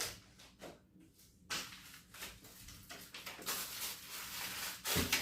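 Handling noise: a few light knocks, then a spell of rustling and scraping, and a heavier thump near the end.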